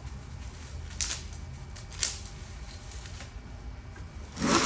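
Handling sounds while fitting wheels onto a manual wheelchair: two sharp clicks about a second apart, then a louder clattering scrape near the end.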